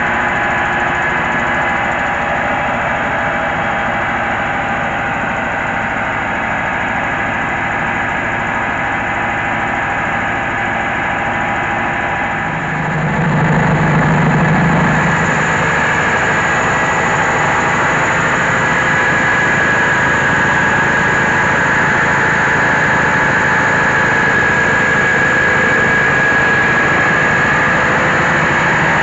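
Diesel engine of a mobile rice huller running steadily along with the hulling machinery. It gets louder about twelve seconds in.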